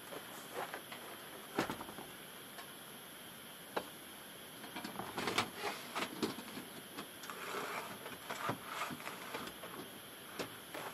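Camping gear being handled and packed into the rear cargo area of a kei van: knocks, clatter and rustling, with a sharp knock about a second and a half in and a busier run of clatter from about five to nine seconds. A steady patter of rain runs underneath.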